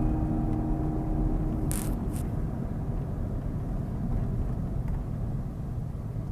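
Road and engine noise inside a moving car's cabin: a steady low rumble, with two short sharp sounds about two seconds in.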